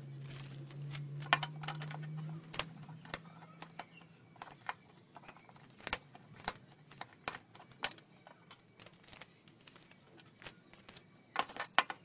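Scattered metallic clicks and taps of an old ceiling fan stator and its steel shaft being handled and knocked against a concrete floor while its copper windings are stripped. A quick run of louder clicks comes near the end. A low hum fades out in the first few seconds.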